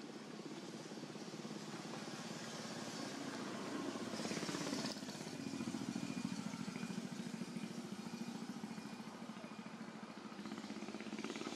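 A motor vehicle engine runs in the background as a steady drone. About five seconds in its pitch sinks, as when it slows or passes. A short hiss comes just before.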